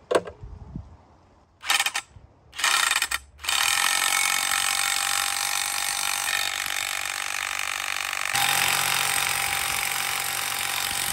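A 3/4-inch impact driver hammering a steel Pylex foundation screw down into tough clay ground: two short bursts on the trigger, then continuous hammering from about three and a half seconds in, changing in tone about eight seconds in.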